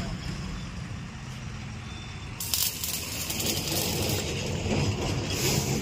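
Stick (arc) welding: the electrode crackles and hisses, starting about two and a half seconds in, over a steady low hum.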